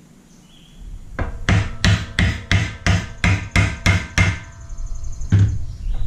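A hammer striking about ten quick blows in a row, roughly three a second, each with a short metallic ring. One more blow follows about a second later.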